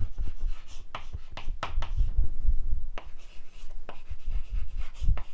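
Chalk writing on a chalkboard: irregular scratches and taps of the chalk as words are written out.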